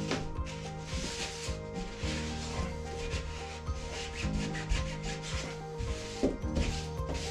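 Rubbing and wiping around a bathtub's drain hole by hand, in repeated short strokes, as the plughole is cleaned before the new waste fitting goes in. Background music plays underneath.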